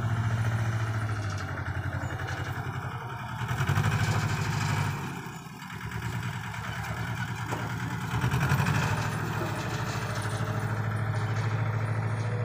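Mini tractor loader's engine running steadily as it lifts and tips soil into a trolley. It gets louder about four seconds in and again about eight seconds in, with a short dip between.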